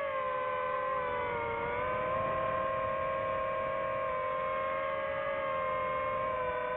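DJI FPV drone's motors and propellers whining as it flies, several close tones at once. The pitch dips slightly about a second in, then holds steady.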